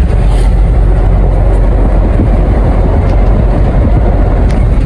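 Loud, steady engine and road rumble heard from inside a moving small passenger vehicle.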